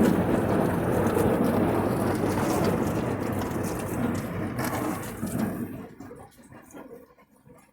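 Beko dishwasher running, a loud rushing, rumbling water noise from inside the machine that dies down about five and a half seconds in. The owner takes the noisy running for a fault.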